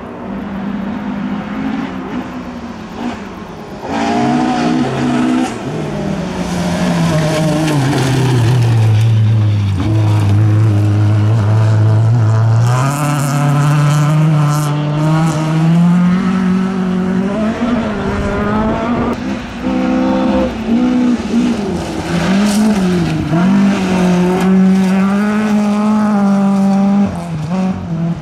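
Rally cars on a gravel stage, engines revving hard. The engine note drops and holds low for a few seconds about a third of the way in, then climbs again and rises and dips quickly through gear changes and lifts, over tyre and gravel noise as the cars slide past.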